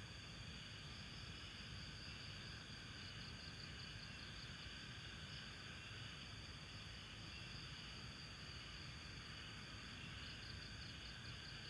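Faint chorus of night insects: a steady high chirring, with a pulsing trill about three seconds in and again near the end, over a low background rumble.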